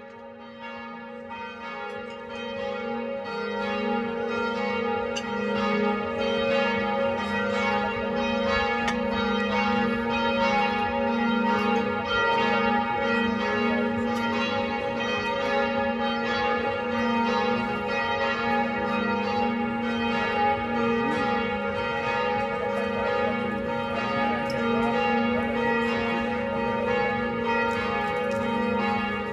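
Church bells pealing continuously, many bells sounding together, fading in over the first few seconds and then holding steady.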